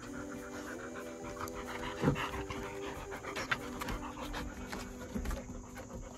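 Golden retriever panting close to the microphone, a steady run of rapid breaths.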